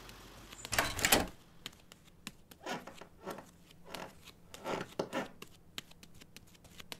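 Audio-drama sound effects: a burst of rustling noise about a second in, then a string of short, irregular scuffs and clicks.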